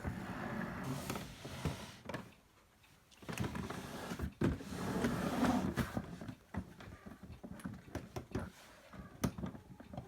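Olympia Monica de Luxe typewriter being worked by hand: two stretches of sliding, rattling mechanical noise, the second and louder one from about three to six seconds in, then a run of separate sharp clicks.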